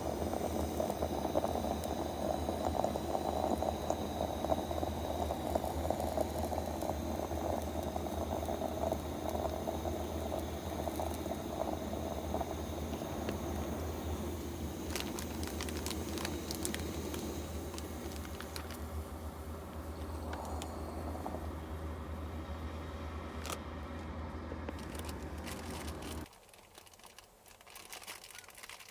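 Water boiling on a stove, a steady bubbling with a low rumble underneath, which stops abruptly about 26 seconds in.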